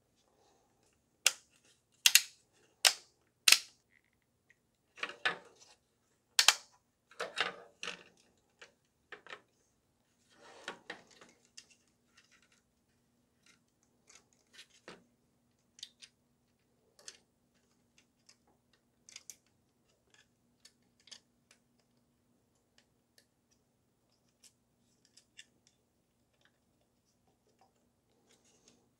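Hard plastic parts of a gel blaster clicking, knocking and scraping as the selector switch is worked back into the plastic receiver shell on a wooden bench. Four sharp clicks come in the first few seconds and another a few seconds later, with scraping between them, then only scattered faint ticks.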